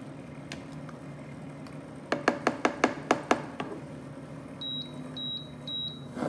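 A spatula knocked rapidly against the rim of a cooking pot: about eight sharp taps in a little over a second. Then three short, high beeps about half a second apart from the induction cooktop's controls.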